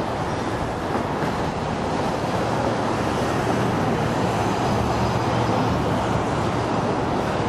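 Boeing 777-300ER's two GE90-115B turbofans at takeoff thrust during the takeoff roll: a steady rushing jet noise with a low hum underneath, growing slightly louder a couple of seconds in.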